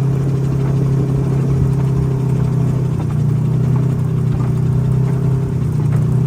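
Motor vehicle engine running steadily, a continuous low drone with no change in speed.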